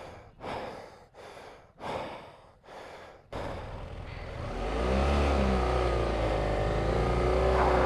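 Heavy, panting breaths close to the microphone, about one every three quarters of a second, from the strain of lifting a dropped motorcycle. After about three seconds a vehicle engine comes in, rises briefly in pitch, then runs steadily and low.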